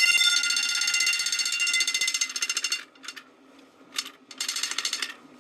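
Vanguard V210-25FT fire alarm bell ringing, its striker hammering the gong rapidly for a loud metallic ring. It cuts off about three seconds in, gives two short blips, then rings once more for under a second.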